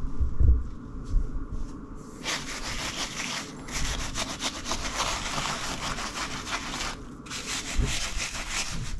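Stiff scrubbing brush scrubbed rapidly back and forth over wet fabric soaked in dish soap and borax, a dense scratchy rubbing that starts about two seconds in and breaks off briefly near seven seconds.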